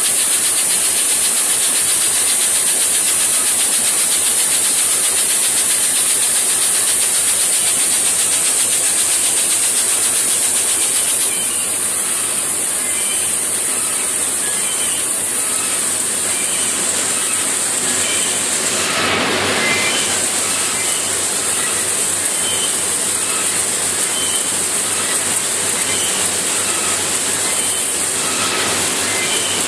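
Seed-cleaning machinery in a processing plant running steadily, with seed pouring from its discharge spouts, heard as a continuous mechanical noise under a strong steady hiss. It steps down a little about a third of the way in, and there is a brief louder surge about two-thirds of the way through.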